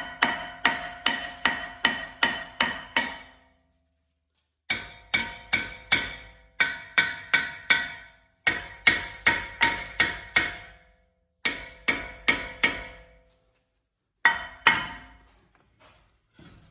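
Hammer blows on a steel front brake disc, freeing it from the hub of a BMW X3. They come in quick runs of about two to three strikes a second with short pauses between, and each blow leaves the disc ringing.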